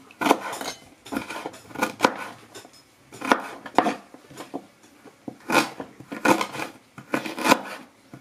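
Chef's knife chopping ginger on a wooden cutting board: irregular knocks of the blade striking the board, about one or two a second.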